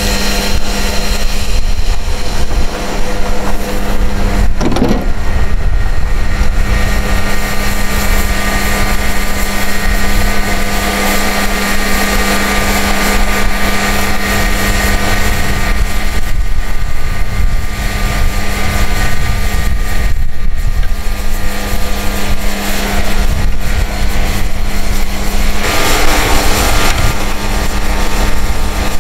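Heavy truck's diesel engine running steadily at a constant speed: an even hum over a rough low rumble, with a brief rising sound about five seconds in.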